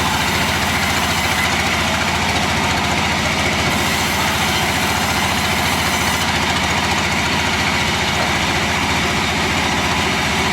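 An engine running steadily at an even speed, with a fast, regular low pulsing throughout.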